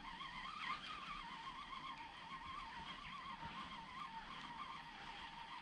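Spinning reel being wound in steadily, retrieving a lure: a faint whine from the reel that wavers in pitch several times a second.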